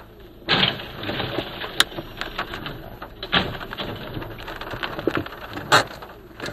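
A panel van overturning onto its side: a sudden loud crash about half a second in, then a few seconds of scraping and clattering as its load scatters across the road, with several separate sharp knocks.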